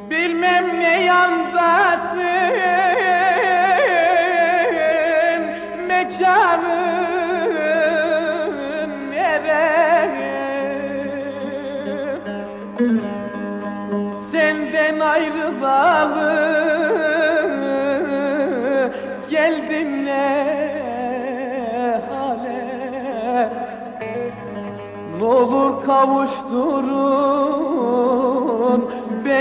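Turkish folk song (türkü) recording in an instrumental passage between verses: a string melody with vibrato and sliding notes in a Middle Eastern mode, over a steady low held note.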